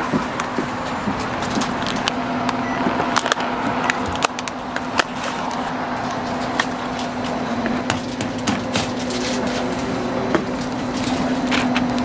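A clear plastic egg pack crackling and clicking as hands open it and handle boiled eggs, with scattered sharp ticks that come thicker in the second half, over a steady low hum.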